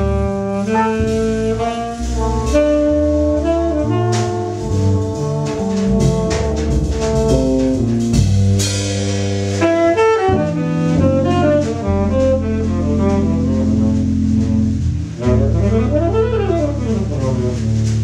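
Free jazz improvisation: saxophone and trumpet lines over acoustic and electric bass and a drum kit with cymbal strikes. The trumpet drops out partway through. Near the end, pitches slide up and down across each other over a steady low bass.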